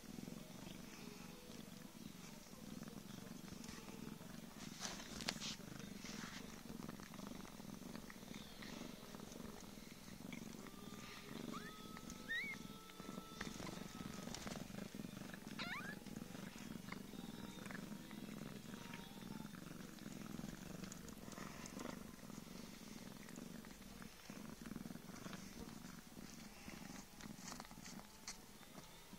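Mother cat purring steadily while her newborn kittens nurse. A few faint, thin high squeaks come about halfway through.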